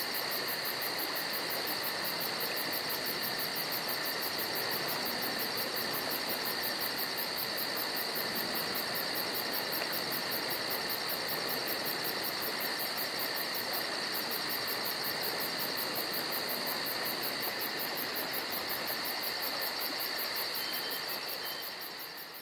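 Steady chorus of insects, with a fast-pulsing high buzz above steady high trills and an even hiss beneath, starting to fade out near the end.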